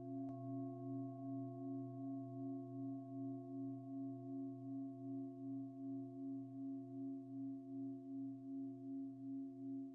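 A singing bowl ringing with several overlapping tones and a steady pulsing wobble. It is struck again just after the start and left to ring on softly.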